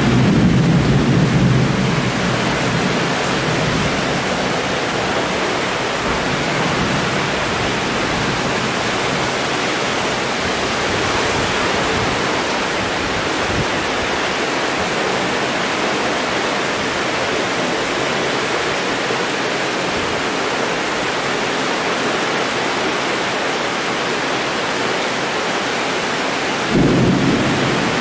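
Heavy tropical rainstorm: rain pouring steadily, with a low rumble in the first couple of seconds and again near the end.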